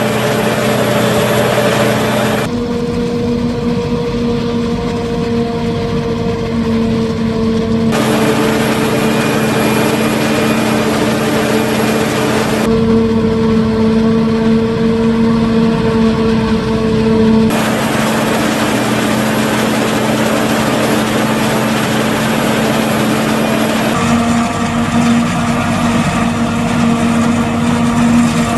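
Claas Jaguar 870 forage harvester running steadily under load while chopping corn, a constant machine drone with a held tone through it. The sound shifts abruptly about five times, as from one shot to the next.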